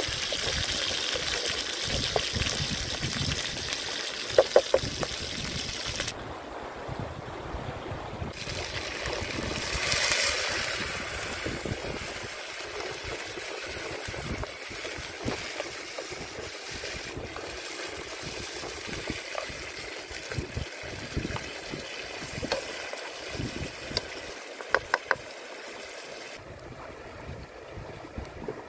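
A river flowing steadily, with a few short sharp clicks over it, twice in small clusters.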